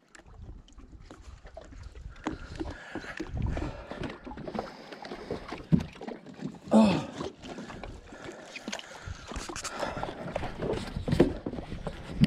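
Footsteps and scattered knocks on a wooden dock, with clothing rubbing on a body-worn camera as the wearer moves. A brief low vocal sound comes about seven seconds in.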